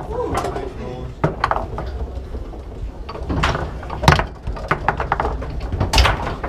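Foosball table in play: the ball and the plastic men knocking and clacking, with sharp knocks at uneven intervals, the loudest about four and six seconds in. Background voices run underneath.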